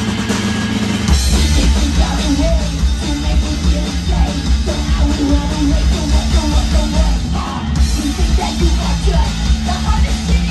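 Punk rock band playing live: electric bass, electric guitar and drum kit. Held low notes ring for about a second, then the full band comes in with fast, driving drums and distorted guitar.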